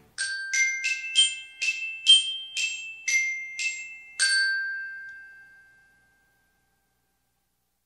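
A short logo jingle of bright mallet-percussion notes, glockenspiel-like: about ten high struck notes, roughly two a second, each ringing and fading, with the last note held longer and ringing out.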